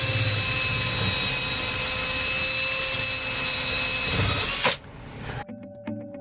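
Power drill running at full speed with a steady high whine, stopping abruptly about three-quarters of the way through; quiet music follows.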